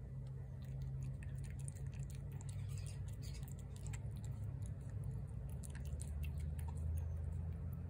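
A cat chewing and lapping shredded wet cat food in gravy from a plate, heard close as many small wet clicks, over a steady low hum.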